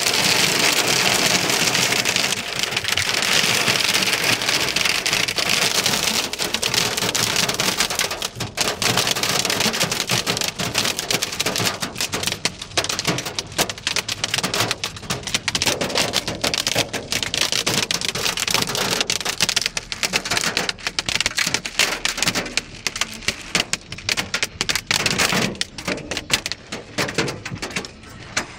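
Hail and rain drumming on a car's roof and windscreen, heard from inside the cabin. It starts as a dense, steady clatter, and after about eight seconds breaks up into separate hits that thin out toward the end.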